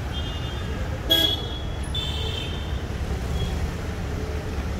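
Vehicle horns honking in short high-pitched toots over a steady rumble of road traffic: one near the start, a louder, sharper blast just after a second in, and another about two seconds in.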